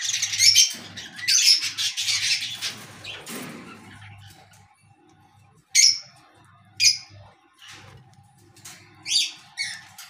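Black-capped lories chattering and screeching loudly for about three seconds, then fading, followed by a few short, sharp calls later on.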